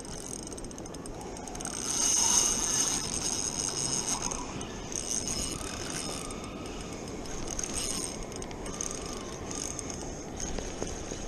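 Spinning reel working against a hooked salmon: a steady mechanical whirring and ratcheting of the reel's gears and drag, getting louder about two seconds in.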